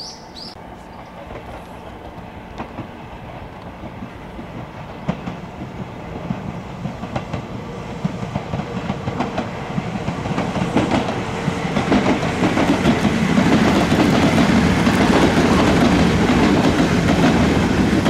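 Kintetsu 'Sakura Liner' limited express electric train passing close by, its rumble swelling over the first dozen seconds and loudest near the end, with the wheels clacking regularly over the rail joints.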